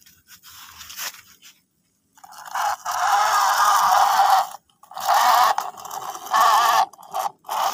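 Plastic toy car scraping as it is pushed along a plastic surface: one long stroke about two seconds in, then three shorter ones.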